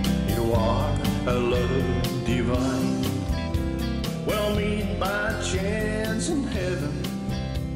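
Country song playing, a voice singing over a steady beat.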